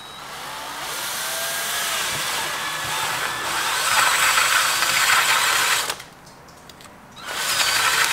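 Power drill spinning a step drill bit as it cuts through the plastic end cap of a motorcycle lock-on grip. It runs for about six seconds, stops briefly, then starts again near the end.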